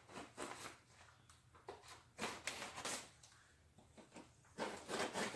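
Cardboard shipping box being worked open: faint, irregular scrapes and rustles of the cardboard and packing.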